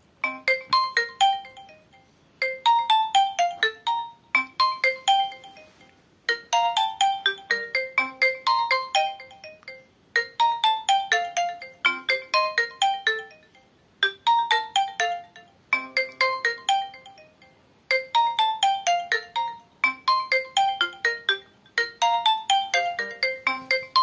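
Nokia N95 ringtone playing through the phone's small loudspeaker: a short chiming phrase of quick notes stepping downward, repeating about every two seconds.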